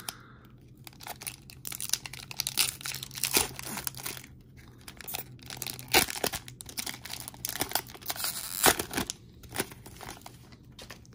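Foil wrapper of a 1994-95 Skybox Premium basketball card pack crinkling and tearing as it is ripped open by hand. Irregular crackling, loudest about six and nine seconds in.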